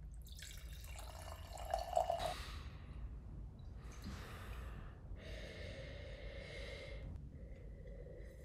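Sake poured from a bottle into a stemmed wine glass, a splashing trickle lasting about two seconds whose pitch rises as the glass fills. This is followed by several long breaths through the nose as the sake in the glass is smelled.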